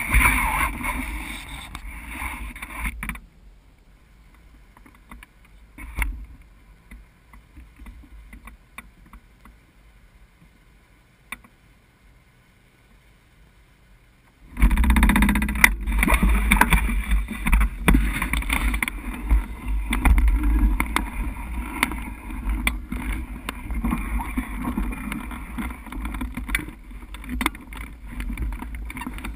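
Wind buffeting the microphone of a camera mounted on a hang glider's frame. It starts suddenly about halfway through and goes on as a rough, rumbling rush with occasional knocks. Before that there is a few seconds of handling noise against the camera, then a quiet spell with scattered ticks.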